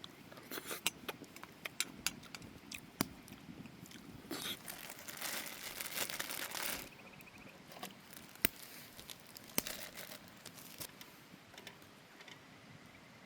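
Crinkling and tearing of packaging amid a scatter of light clicks and knocks, with a longer stretch of rustling a little before the middle.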